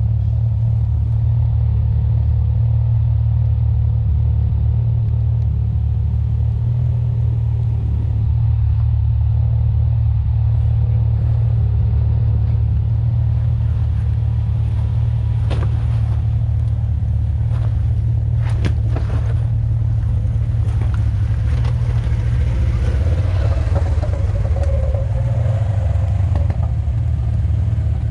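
Side-by-side UTV engine running steadily, a deep even rumble. A few sharp knocks and rattles come about halfway through.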